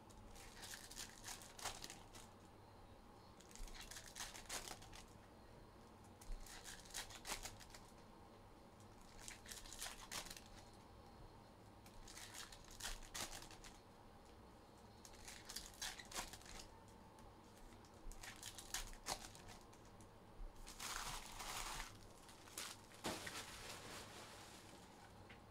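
Trading card pack wrappers being torn open and crinkled, in faint short bursts every two to three seconds.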